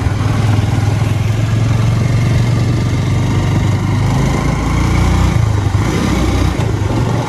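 Motorcycle engine running steadily at cruising speed, heard from the rider's helmet with wind noise over it; the engine note changes briefly about five to six seconds in.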